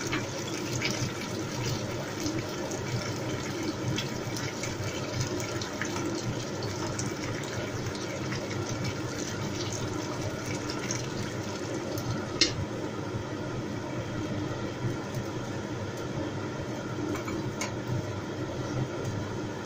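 Sauce bubbling steadily in a clay pot of chicken and mushrooms over a gas burner, with the flame's even hiss beneath. A single sharp clink about twelve seconds in.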